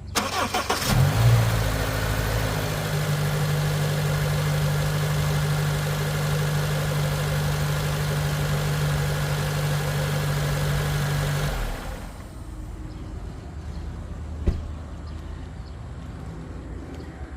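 Honda K24A 2.4-litre four-cylinder engine cranked by the starter, catching about a second in with a brief flare of revs, then idling steadily before it is switched off about twelve seconds in. The cold-start rattle it is run to show is commonly put down to a VTC actuator fault, timing chain tensioner wear or low oil pressure at startup. A single click follows a few seconds after shutdown.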